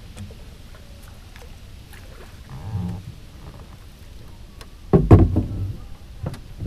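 Wooden oar being handled in a small Melonseed sailing skiff, knocking against the boat: a soft thump near the middle, then a cluster of loud sharp knocks about five seconds in and one more shortly after.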